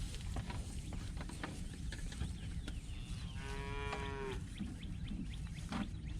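A cow moos once, about a second long, around the middle, the call falling slightly in pitch. Scattered soft clicks and knocks run underneath.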